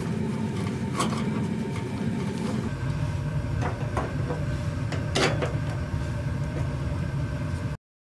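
Steady low rumble of the water heater's main gas burner firing, under the rubbing of a cloth over the gas control valve, then a few sharp scrapes and clicks as the sheet-metal burner cover is fitted back on. Cuts off suddenly near the end.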